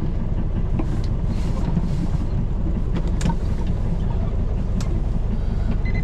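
Small fishing boat's engine running steadily at low speed as the boat is manoeuvred into its berth, with a few faint knocks.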